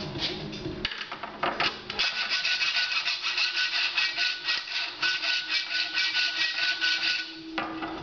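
Hacksaw cutting a metal rod clamped in a bench vise: a few light clicks as the blade is set, then steady back-and-forth scraping strokes, about two a second, that stop shortly before the end.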